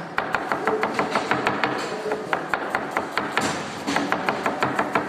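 Kitchen knife rapidly chopping vegetables on a cutting board: quick, even strokes at about six a second, with a couple of brief pauses.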